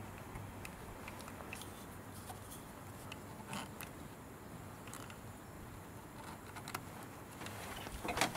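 Small clicks and light rustling of hands handling a boost gauge, its brass hose fitting and clear plastic tubing, with a louder cluster of clicks and rustle near the end.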